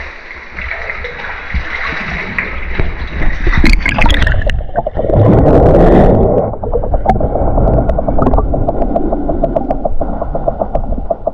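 Water splashing and bubbling as a caver ducks under and free-dives into a flooded cave sump. From about five seconds in, the sound is heard from underwater: a muffled rush of water with a fast run of small, even ticks.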